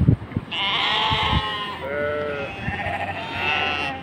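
A flock of Hisar sheep bleating: a long wavering bleat about half a second in, a lower bleat around two seconds, then more overlapping bleats to the end. A few low knocks at the very start.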